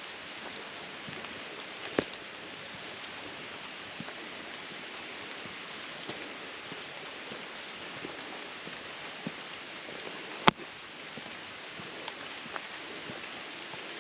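Light rain falling in the woods: a steady hiss, with a few sharp ticks, the loudest about ten seconds in and another about two seconds in.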